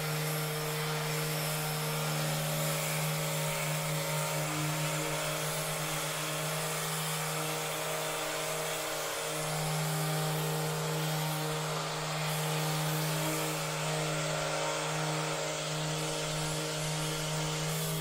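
Corded handheld Rapid Release therapy device, an electric massager, buzzing steadily as it is pressed on the neck and shoulder muscles. The steady hum wavers briefly about nine seconds in.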